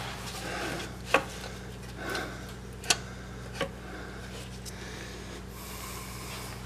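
Starter motor being wiggled and pushed against the engine and frame under the truck, giving scraping and rubbing with three sharp metal knocks, about one, three and three and a half seconds in. The starter is stuck and won't slide out.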